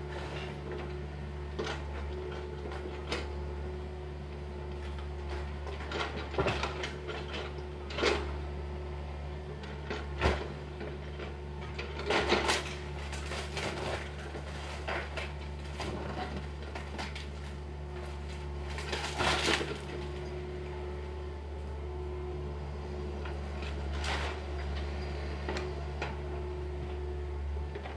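Excavator demolishing a wooden house: its diesel engine hums steadily while broken timber and debris knock and clatter off and on. Louder bursts of clattering come about 6, 12 and 19 seconds in.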